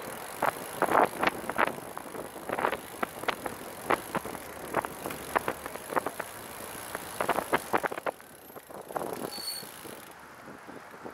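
Catrike 700 recumbent trike rolling on pavement: irregular clicks and rattles over a steady road and wind hiss, the whole sound dropping off about eight seconds in.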